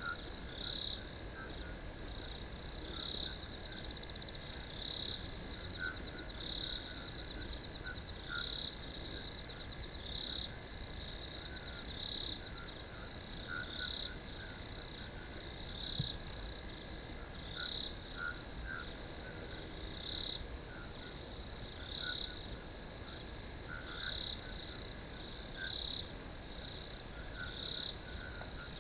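Crickets trilling steadily, the chorus swelling in louder pulses about once a second, with softer chirping calls lower in pitch scattered throughout.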